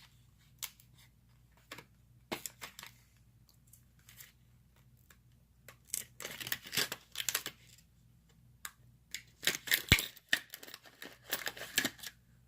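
Hard plastic blister packaging being cut with scissors and pulled apart, crackling and crinkling in irregular bursts, with a sharp snap about ten seconds in.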